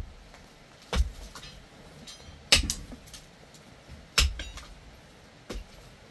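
Pickaxe striking hard, rocky dirt floor: four heavy blows about a second and a half apart, each a sharp crack over a dull thud.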